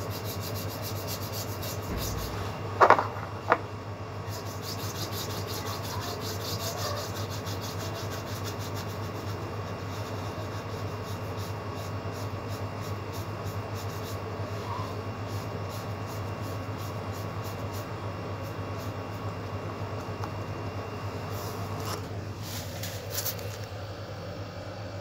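Paintbrush rubbing back and forth over paper as paint is brushed on, stroke after stroke, over a steady low hum. Two brief sharp sounds about three seconds in stand out above the brushing.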